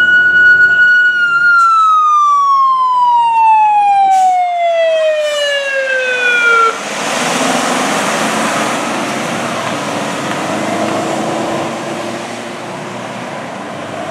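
Fire truck siren holding a steady high wail, then winding down in pitch for about five seconds before cutting off. After that comes the fire truck's engine and road noise as it drives away.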